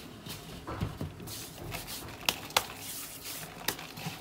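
Hands rubbing and pressing moist, crumbly semolina around a stainless steel bowl, a soft grainy scraping, with a few sharp clicks about two, two and a half, and three and a half seconds in.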